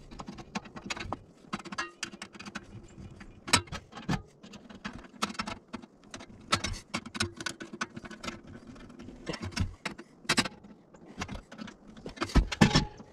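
Screwdriver tightening the small screws of a generator interlock kit on a steel breaker-panel cover: irregular metal clicks and light scrapes, a few of them sharper and louder.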